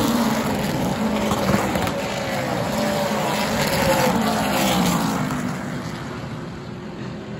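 Super late model stock cars' V8 engines as the pack passes by, the engine pitch dropping as the cars go past. The sound fades over the last couple of seconds as the field moves away.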